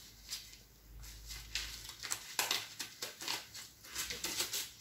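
Thin disposable gloves crinkling and rustling as one is peeled off inside out over the other: an irregular run of short crackles and soft rubbing.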